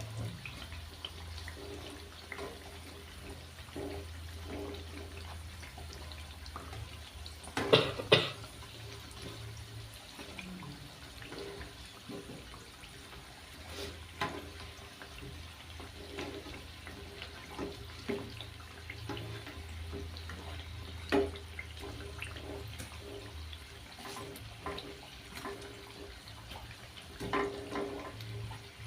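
Mandazi deep-frying in hot oil: a steady sizzling and bubbling with small crackles over a low hum. A sharp double clatter sounds about eight seconds in, and a single knock about twenty-one seconds in.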